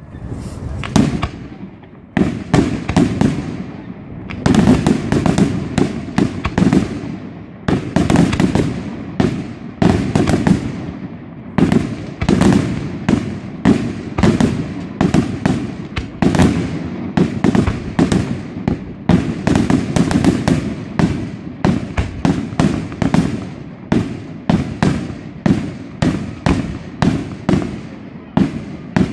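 Aerial fireworks display: shells bursting in a dense, almost unbroken string of loud bangs. In the last several seconds the shots fall into a more even rhythm of about two or three a second.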